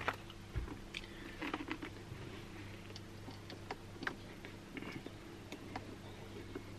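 Faint, irregular small clicks and taps as a screw is turned into a helmet intercom's mounting bracket, over a steady low hum.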